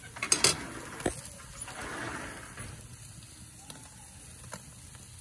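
A few sharp metallic clanks about half a second in, with another a moment later, then a brief hiss and faint sparse crackling from a charcoal grill with whole mackerel scad cooking on its grate.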